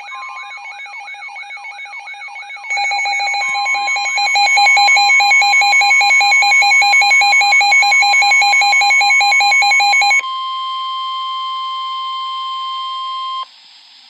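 Midland and other NOAA weather radios alarming together for a severe thunderstorm warning: a repeating warble and rapid electronic beeping, joined about three seconds in by a louder pulsed beeping. Under them runs the steady 1050 Hz National Weather Service warning tone. The beeping stops about ten seconds in, the warning tone carries on alone until it cuts off near the end, and faint radio hiss follows.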